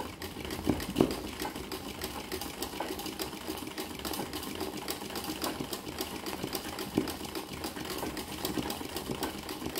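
Sewing machine stitching steadily at speed for free-motion embroidery, its needle running in an even, rapid rhythm as the hooped fabric is guided by hand.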